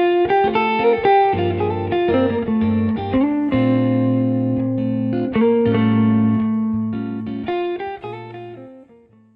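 Background music: a plucked guitar piece that fades out near the end.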